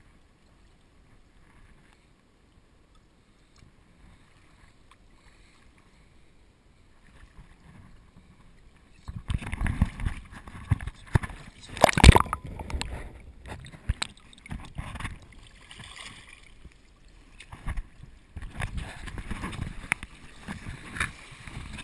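Handling noise aboard a small rowed boat: faint at first, then from about nine seconds irregular knocks, rustling and water sounds, with one sharp loud knock about twelve seconds in.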